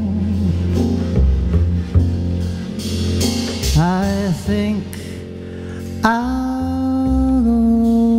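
Live jazz-gospel ballad: a male voice sings wordless, wavering runs at the microphone over a plucked upright double bass. A long note is held from about six seconds in.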